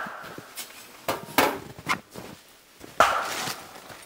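Sharp knocks on a metal stovepipe section, each followed by a brief ring: one ringing out at the start, a few more about a second in, and the loudest about three seconds in.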